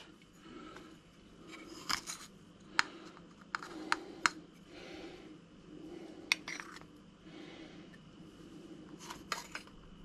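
Coffee scoop dipping into a steel canister of ground coffee and grounds being spooned into a small metal filter basket: a scatter of sharp clicks and clinks with soft rustling between.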